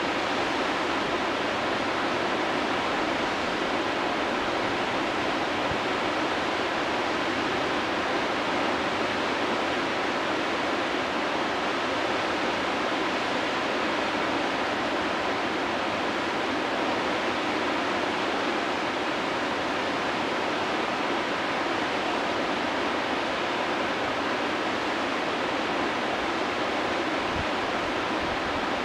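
Whitewater river rapids rushing steadily over a standing wave.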